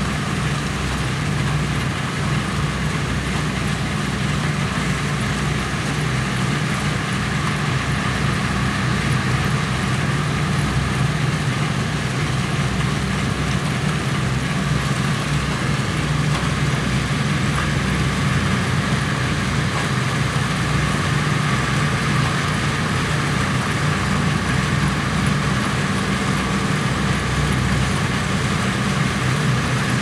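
Self-propelled GB 7150 green bean harvesters running steadily while picking. The engines give a low, even drone under a broad rush of working machinery.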